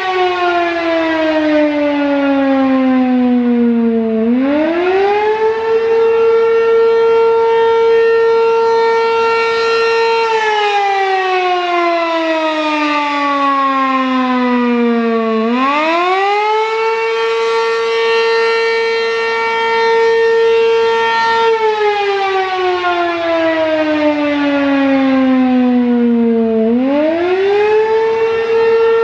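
American Signal Corporation RM-127 Penetrator, a single-tone three-phase electromechanical warning siren, sounding the attack signal. The pitch slides down, climbs quickly back to a steady high tone, holds about six seconds, then slides down again, with three climbs in all. Very loud.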